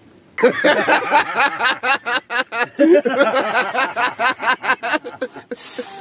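A man laughing, a rapid run of short bursts for about five seconds. Near the end, chicken pieces frying in a pan on a red-hot wood-burning stove start to sizzle with a steady hiss.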